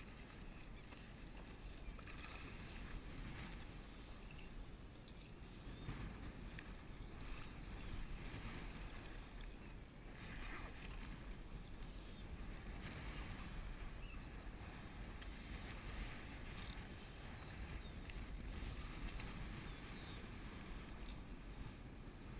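Water lapping and splashing against a kayak hull, with wind buffeting the camera microphone, and brighter splashes every few seconds.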